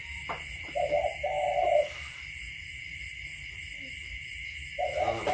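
A hooting animal call, each a short note followed by a longer held note, heard twice about four seconds apart. A steady high-pitched chirring runs in the background.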